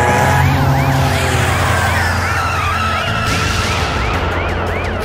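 Police car siren sounding in a quick up-and-down pattern, about twice a second, over a steady low drone of cars. A long tyre squeal comes in about two seconds in.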